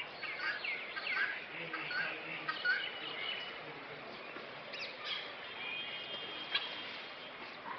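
Birds chirping, many short calls overlapping, with a few longer held whistled notes a little past halfway.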